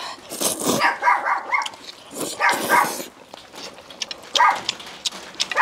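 A person slurping long stir-fried rice noodles off chopsticks: several wet slurps and sucks in quick succession, a few with a squeaky pitched edge.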